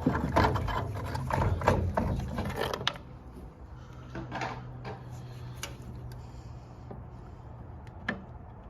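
Water heater gas control valve being turned on the tank's threaded fitting with a pipe slipped on for leverage: a rapid run of scraping clicks for about three seconds, then a faint steady hum with a single sharp click near the end.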